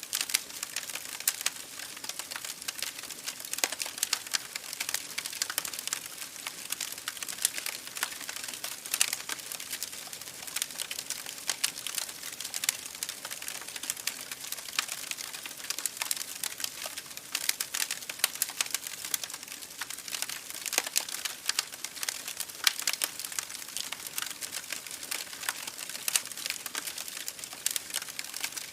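Campfire crackling, with a dense run of irregular snaps and pops over a soft hiss.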